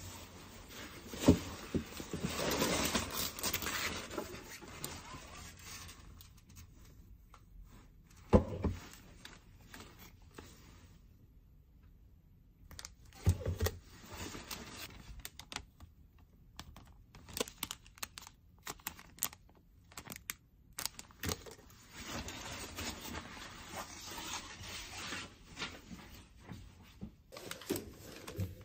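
Hands unpacking shopping: a bag rustles and things are set down with a few sharp knocks. Later come scattered light clicks and more rustling as sheets of adhesive decor film are handled.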